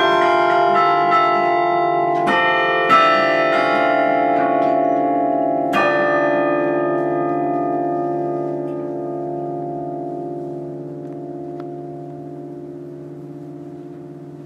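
Carillon bells struck in a last few chords during the first six seconds, then left to ring on, the tones fading slowly away.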